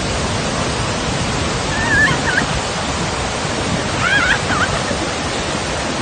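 Large waterfall close by, a steady, loud rush of falling water and spray. Two brief high-pitched cries break through about two and four seconds in.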